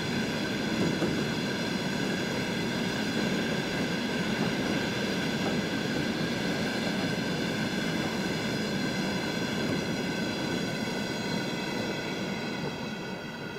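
Loaded container flat wagons of a freight train rolling past, their wheels giving a steady rumble on the rails that dies away near the end as the last wagon passes.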